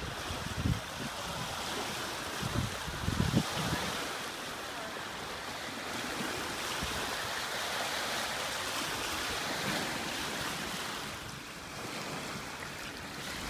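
Small lake waves lapping at the shore, a steady wash of water. Wind buffets the microphone in gusts during the first few seconds.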